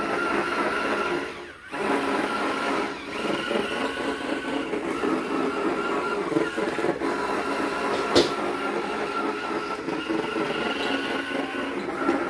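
Small electric motors of a homemade battery-powered RC car running steadily as they drive the wheels, cutting out briefly about a second and a half in, with one sharp click about eight seconds in.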